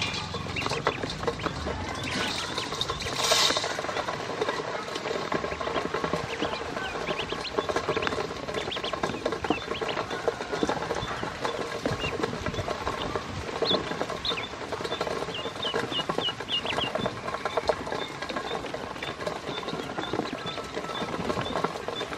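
Ducklings eating feed from a stainless steel bowl, their bills tapping fast on the metal, with short high peeps now and then, several together near the end.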